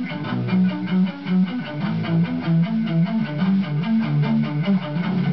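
Electric guitar playing a riff of low picked notes through an amplifier, several notes a second.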